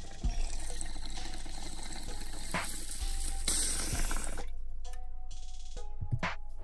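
A steady rushing hiss, brightest for a moment about three and a half seconds in, then dropping away, with faint music underneath.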